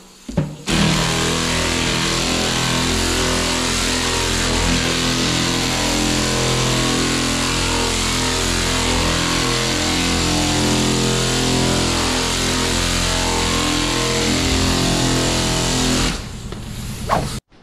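Pneumatic sander running steadily as it sands body filler on a truck door panel, starting about a second in and shutting off shortly before the end.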